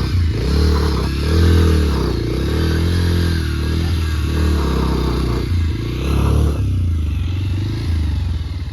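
Bajaj Pulsar motorcycle's single-cylinder engine revving up and dropping back again and again, about five or six times, as the bike is ridden up a rough off-road slope.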